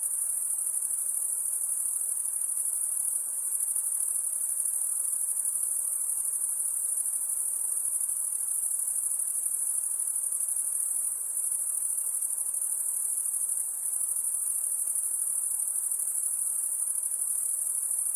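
Crickets trilling: one continuous, high-pitched, rapidly pulsing shrill, steady except for a few brief dips.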